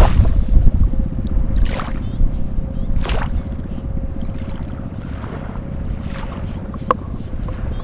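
Water lapping and splashing at the water's edge, with brief surges about two and three seconds in, over a low rumble of wind on the microphone and a faint steady hum. A sharp click near the end.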